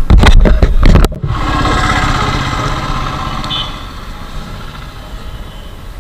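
Motorcycle running on the move, heard through a bike-mounted action camera's microphone, with heavy wind buffeting on the mic for about the first second, then a steadier engine and road sound that slowly fades.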